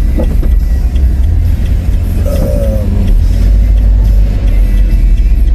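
Campervan's engine and road rumble heard from inside the cab as it drives in at low speed, a steady deep drone.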